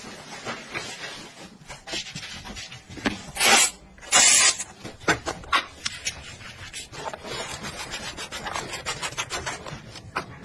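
Sneakers being scrubbed with a sponge: a run of short rubbing strokes, with two louder swishes about three and a half and four seconds in.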